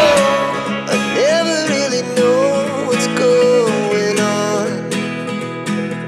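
Background music: a country-style tune with plucked acoustic guitar under a sliding melody line.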